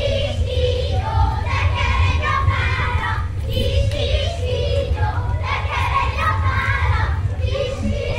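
A group of children's voices singing and calling out together, as in a Hungarian children's folk game dance, over a steady low rumble.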